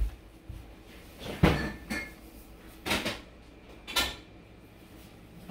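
Four separate knocks and thuds, about a second and a half apart, from a refrigerator door being opened and shut and containers being moved in and out of it.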